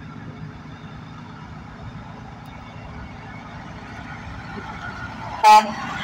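Peterbilt semi truck's diesel engine running as it approaches, slowly growing louder, then one short, loud toot of its air horn near the end as it draws alongside.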